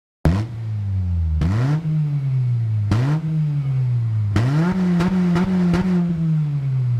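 2009 Honda Civic Si's four-cylinder engine revved while standing, heard through its exhaust: four quick throttle blips, each jumping up in pitch and sagging back. The last is held high for about a second and a half before falling away.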